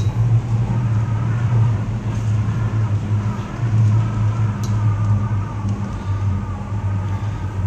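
Steady low hum and rumble of an aerial tram cabin travelling along its cables, heard from inside the cabin.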